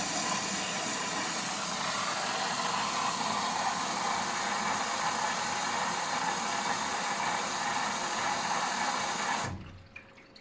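Water rushing into an LG washing machine through its inlet valve: a loud, steady hiss that cuts off suddenly near the end as the valve closes.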